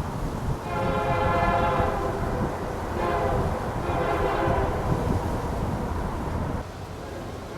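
Locomotive air horn sounding two blasts over the low rumble of a passing train: a short blast about a second in, then a longer one that fades away. The sound level drops abruptly near the end.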